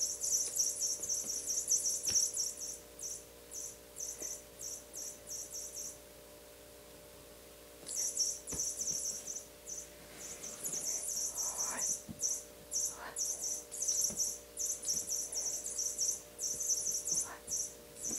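Rapid, high-pitched chirping in repeated bursts that pauses for about two seconds partway through, over a faint steady hum.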